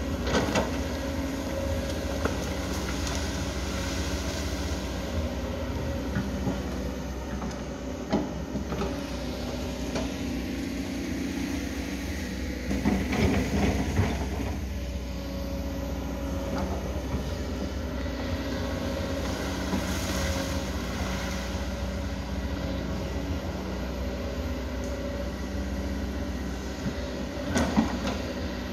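Tracked excavator's diesel engine running steadily, with scattered clanks and knocks as the bucket works soil, stones and tree debris. The louder clatters come about halfway through and again near the end.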